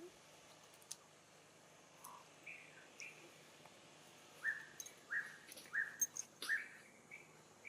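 A series of short, high chirping animal calls: a few sparse ones, then a quick run of five louder chirps in the second half, with a few sharp clicks among them.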